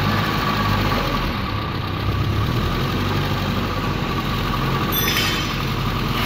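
ZAZ Zaporozhets engine idling with a knock, which the mechanics suspect comes from the camshaft and take as a sign the engine will not hold out. A short metallic clink about five seconds in.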